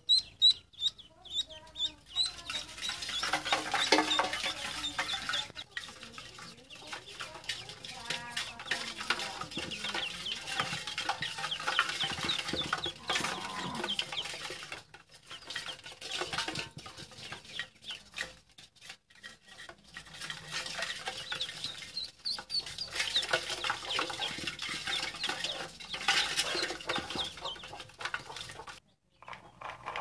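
Domestic ducklings peeping. At first a single duckling gives rapid, evenly spaced high peeps, then many ducklings peep together in a dense, continuous chorus, with a few short lulls.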